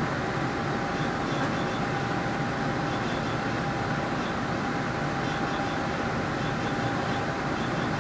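Steady running noise of an MBTA Green Line light-rail train in motion, heard from inside the car: an even rumble and hiss with a steady whine running through it.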